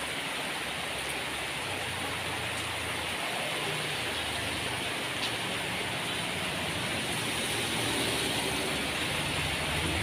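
A stream of rainwater pouring from a spout and splashing into a puddle on wet ground: a steady rushing, splashing hiss. Underneath, a low rumble grows stronger near the end.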